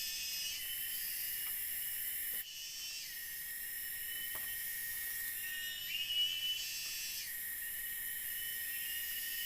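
Forest insects shrilling in a steady high-pitched chorus, with layers that start and stop every few seconds. A short chirping call comes in about six seconds in.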